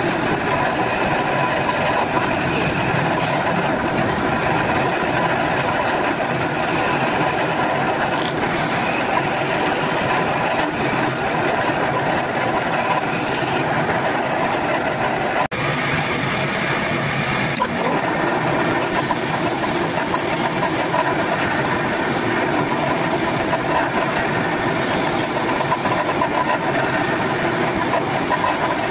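Steady, loud mechanical running noise, like a motor-driven workshop machine running continuously, with a brief dropout about halfway through.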